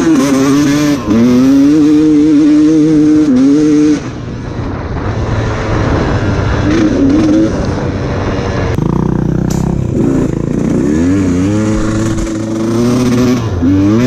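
Enduro dirt bike engine revving hard on and off the throttle. It is loud for the first four seconds, drops to a lower, rougher note for several seconds, then pulls up through the revs again near the end.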